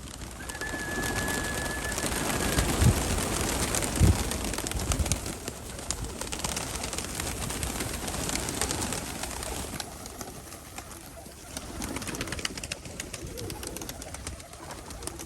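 A flock of Nikolaev pigeons cooing, over a dense scatter of small clicks and rustles. There are two dull thumps about three and four seconds in. A short, steady, high whistle-like tone sounds in the first couple of seconds.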